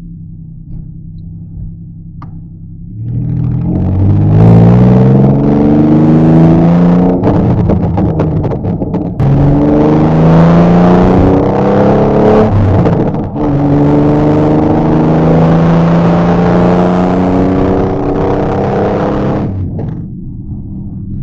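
Restored Ferrari engine accelerating hard through the gears: its pitch climbs in each gear and drops sharply at each of three upshifts, rising more slowly in the higher gears. About 19 seconds in the throttle comes off and the sound falls back to a low drone.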